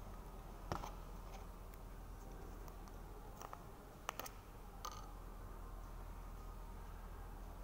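A handful of short, sharp plastic clicks and crackles as a plastic cup is handled and the lid is peeled off a small plastic sauce cup, over a low steady room hum.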